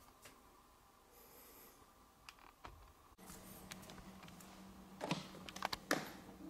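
Faint room tone, then a steady low hum comes in about halfway; about five seconds in, a cluster of soft knocks and rustles as bare feet step onto a digital bathroom scale.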